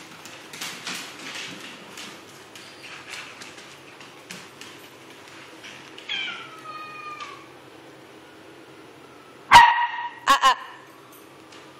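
Corgi puppy barking: first a drawn-out call that falls in pitch, about six seconds in, then three sharp barks near the end, the first one loudest and the last two close together. Light scattered clicks come earlier as the puppy runs about.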